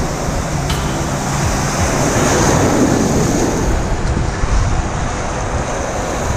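Ocean surf breaking and rushing through shallow water, with wind on the microphone. The rush of water swells about two seconds in as a wave surges through, then eases near the end.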